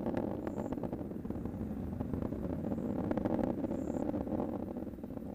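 Falcon 9 first stage's nine Merlin engines heard from the ground as the rocket climbs away: a steady low rumble with a faint crackle through it.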